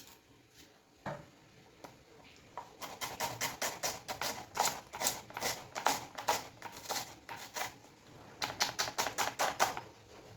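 Knife chopping on a cutting board, quick even strokes about four to five a second, in two runs with a short pause between them.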